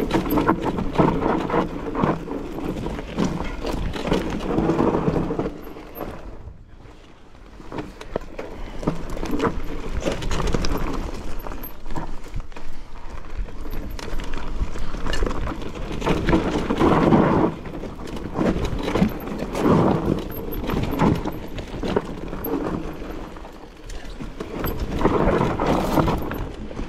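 Mountain bike being ridden over a rough trail: the tyres and frame rattle and crackle continuously, with a low rumble of wind on the microphone. The noise swells and fades in waves and drops away briefly about six seconds in.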